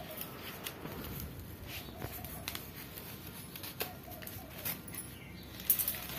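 Newspaper wrapping rustling, with small clicks and taps as jute twine is pulled off a plant's wrapped root ball by hand; a louder crinkle near the end.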